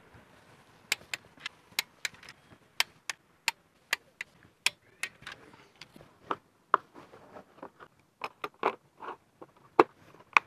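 Click-type torque wrench set to 15 Nm: about a dozen sharp, irregularly spaced clicks over the first five seconds. Then softer knocks as it is laid into its hard plastic case, with two more sharp clicks near the end.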